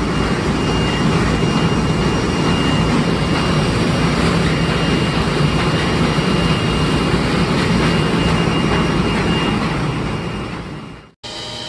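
Steady drone of factory machinery in a box plant, a high whine held over a low hum. Near the end it fades out and a quieter machine hum with several held tones takes over.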